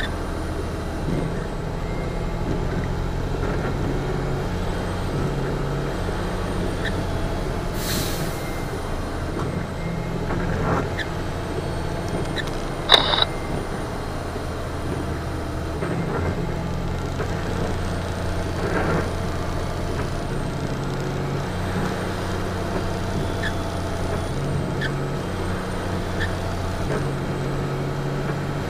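Western Star semi truck's diesel engine running steadily in third gear direct, fully loaded, on a downhill, heard from inside the cab. A brief hiss comes about a third of the way in, and a louder, sharper sound near the middle.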